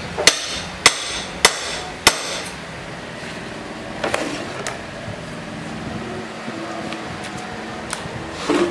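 Hammer striking a chisel to cut open the plastic lid of a lead-acid battery: four sharp, ringing blows about 0.6 s apart, then a few lighter knocks.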